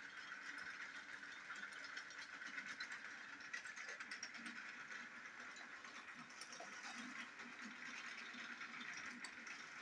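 Battery-powered Plarail toy train running on plastic track, a steady faint motor whine with the light rattle and ticking of its wheels and the string of small wagons it pulls.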